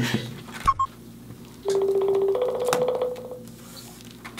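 An electronic buzzing tone that steps from a lower note to a slightly higher one and lasts about a second and a half, preceded by two short high blips.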